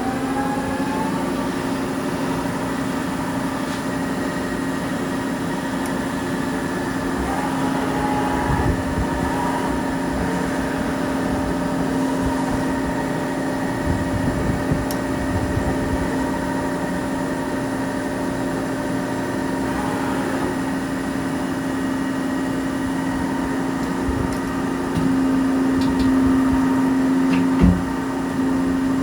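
Mori Seiki SL-4 CNC lathe running, a steady machine whine made of several tones. The whine rises in pitch during the first second as the machine comes up to speed, then holds steady. About 25 seconds in it gets a little louder, and a short knock follows near the end.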